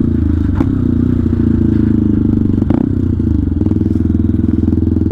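Benelli TNT 125's single-cylinder engine running under way as the motorcycle is ridden, holding a steady engine speed, with a couple of faint knocks.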